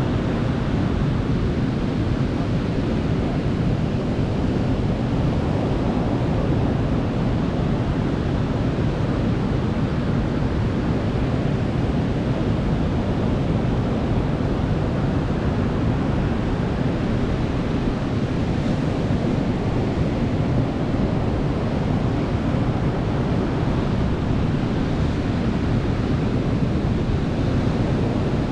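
Ocean surf washing onto a beach at night: a continuous, low-pitched wash of waves, steady in level without distinct breaks.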